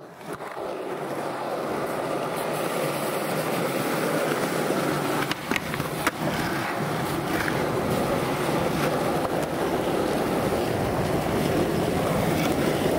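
Skateboard wheels rolling over rough asphalt: a steady rushing rumble that fades in over the first couple of seconds, with a couple of sharp clicks of the board about halfway through.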